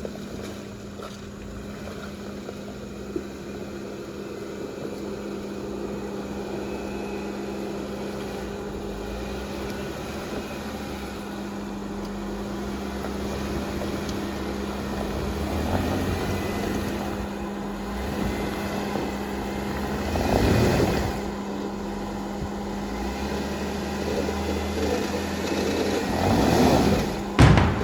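Off-road vehicle engine running over a trail, with a steady low rumble that swells louder three times as it is revved: briefly about 16 seconds in, more strongly around 20 seconds, and again near the end.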